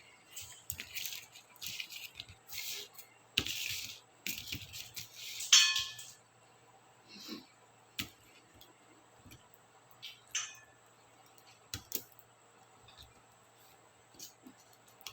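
Small plastic clicks, rattles and scrapes of laptop keycaps and their clips being pried off and handled. They come thick in the first six seconds, with a brief ringing knock, the loudest sound, about five and a half seconds in, then only a few scattered clicks.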